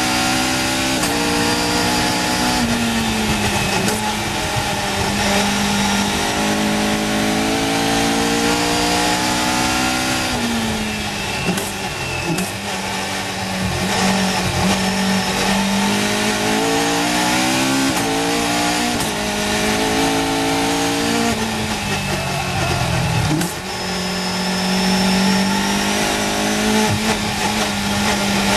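Caterham Seven's Cosworth 2.4-litre four-cylinder race engine under hard acceleration, the revs climbing and dropping back at each gear change. Twice the revs fall away as the car brakes for a corner, about ten seconds in and again about twenty-two seconds in, then it pulls hard again.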